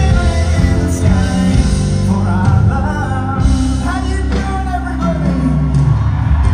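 A pop-rock song with singing over guitar and bass.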